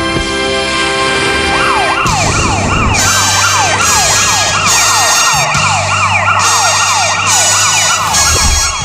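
Music for about the first second and a half, then a siren sound effect takes over, its pitch sweeping repeatedly about three times a second.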